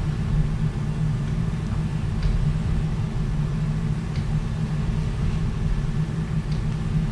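Steady low rumble of operating-room equipment running during arthroscopic shoulder surgery, with a few faint ticks.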